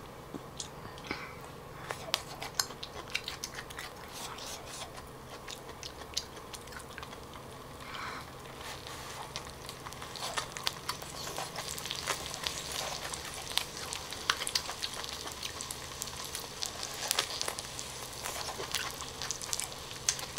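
Cheese and asparagus crackling on a hot grill pan: a sparse scatter of small pops that thickens into dense crackling about halfway through, mixed with the crisp chewing of a bitten asparagus spear.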